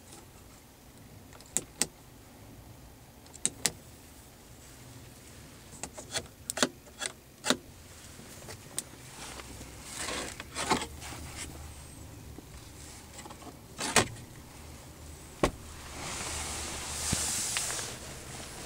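Interior switches of a 1988 Cadillac Brougham clicking sharply as buttons are pressed: two pairs of clicks, then a quick run of clicks, then single clicks. A couple of seconds of steady whirring come near the end, over a faint low hum.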